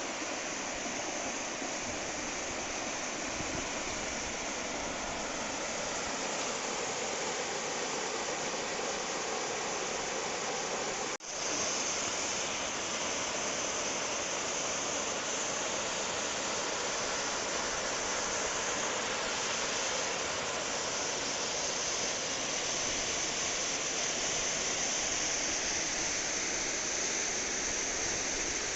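Steady rush of a mountain stream's water, falling and tumbling over rock, with a brief dropout about eleven seconds in, after which the rush sounds a little brighter.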